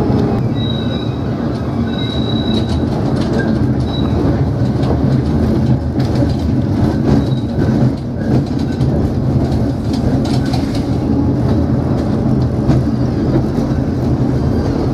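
Tram running along street tracks, heard from on board: a steady low rumble and motor hum with scattered clicks from the wheels on the rails, and a few short high wheel squeals in the first four seconds.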